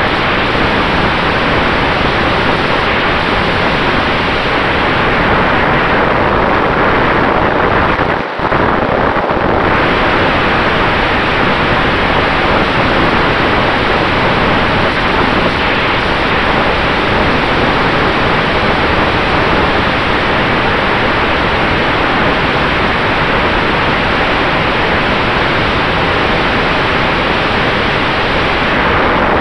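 Steady, loud rush of wind over the onboard camera's microphone mixed with the propeller of a flying RC model Maule plane, with a faint steady tone underneath. The noise briefly drops about eight seconds in.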